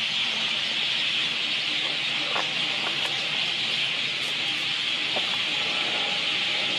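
A steady, high-pitched hiss that does not change, with a few faint brief clicks over it.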